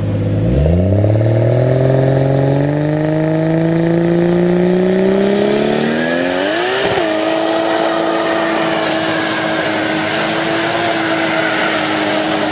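Turbocharged straight-six of a 600 hp Nissan Skyline R33 doing a burnout. The revs climb steadily for about six seconds to a peak, then the engine is held at high revs while the rear tyres spin.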